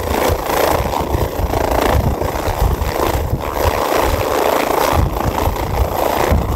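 Twin-engine turbine helicopter hovering close to the ground: steady loud engine and rotor noise over a fast low pulsing from the blades.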